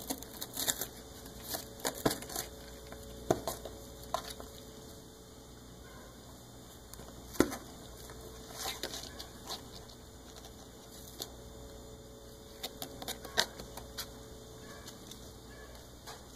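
Kitten gnawing and biting the torn edge of a cardboard box: irregular crackles and crunches of cardboard, coming in clusters with pauses between.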